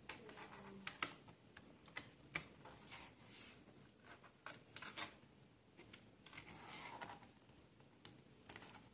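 Faint, scattered clicks and taps of fingers handling the plastic underside of an Acer Aspire laptop around the battery bay.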